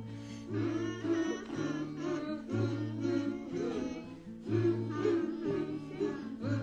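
Children's theme song: a voice singing over a plucked-string accompaniment with a walking bass line.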